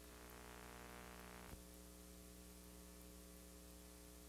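Near silence: a faint steady electrical hum with light hiss, and one small click about one and a half seconds in.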